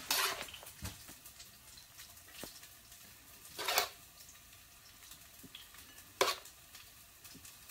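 A cooking utensil scraping against a pan of stir fry three times, the first right at the start, then about a third of the way in and again past the three-quarter mark, with quiet stretches between. A faint sizzle sits underneath.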